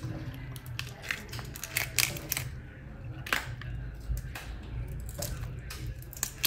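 Raw freshwater prawn shell crackling and clicking in irregular snaps as fingers grip and pull at it during cleaning, over a faint low hum.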